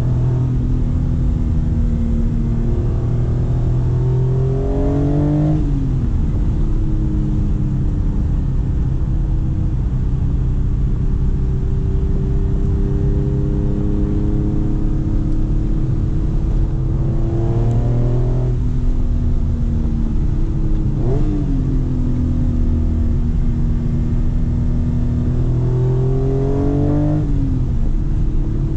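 A 1992 Acura NSX's V6 engine, heard from inside the cabin, pulling hard through the gears. The pitch climbs steadily and falls sharply at each of several upshifts.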